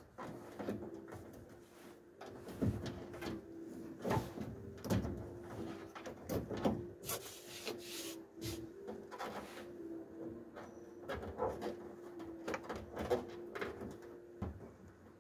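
Irregular clicks, taps and scraping of plastic trim and a thin cable being worked behind the edge of a van's headliner with a plastic trim tool, with a steady low hum underneath that stops shortly before the end.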